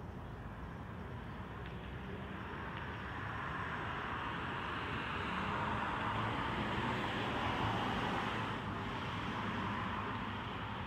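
Passing road traffic: a hiss of vehicle noise that swells over several seconds, peaks about two-thirds of the way through, then eases off.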